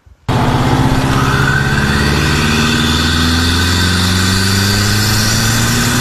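Subaru WRX's turbocharged flat-four boxer engine running at a fairly steady speed. It cuts in suddenly just after the start, and its pitch drifts only slightly.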